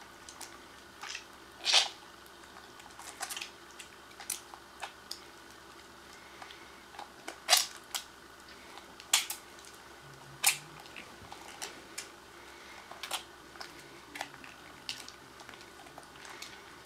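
Wet hands being scrubbed: short, irregular rubbing and scraping strokes on skin, one or two a second, a few louder than the rest.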